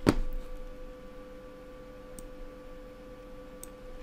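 Computer mouse clicking: one sharp click at the start and a few faint clicks later, over a steady electrical hum.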